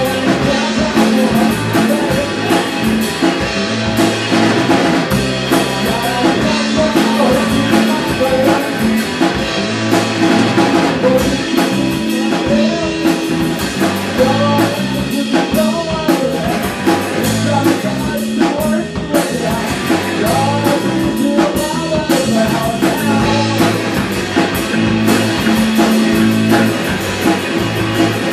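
Live rock band playing through amplifiers: a drum kit with cymbals keeping a steady beat, electric guitar and electric bass, with the lead singer singing over it.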